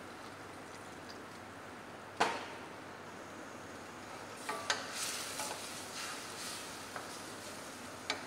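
Chicken sizzling in sauce in a stainless steel saucepan with a steady hiss, just after a splash of water was added, while a wooden spatula stirs and knocks against the pan. A sharp single knock about two seconds in, and a run of clicks and scrapes about halfway through.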